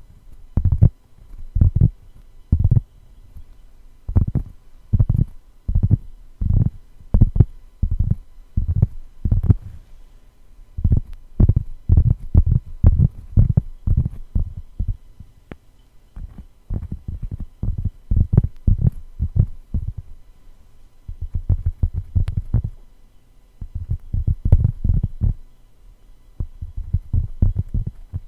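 Tapping on a cork board: quick runs of soft, dull, low taps in clusters, several a second, with short pauses between runs.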